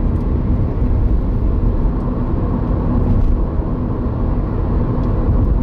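Steady road and engine noise from a moving car, heard inside the cabin as a low, even rumble.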